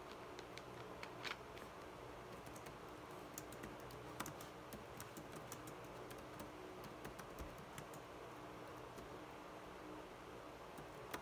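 Faint, irregular typing on a computer keyboard, quick uneven key clicks over a steady low hum.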